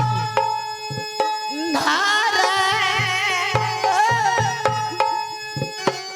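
Folk-theatre accompaniment: hand-drum strokes over steady held chords, with a wavering, swooping melody line coming in about two seconds in and fading out by the middle.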